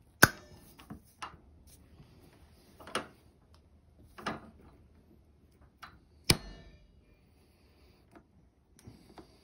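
Sharp metallic clicks and snaps, about seven in all, from locking pliers clamping on, slipping off and being released from the broken screwdriver-bit stub jammed in a DeWalt impact driver's chuck. The loudest snaps come just after the start and about six seconds in, the second one ringing briefly. Each slip breaks small pieces of metal off the stub rather than turning it.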